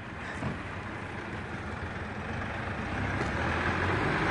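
A motor vehicle approaching along the road, its engine and tyre noise growing steadily louder, with a low engine hum coming in near the end.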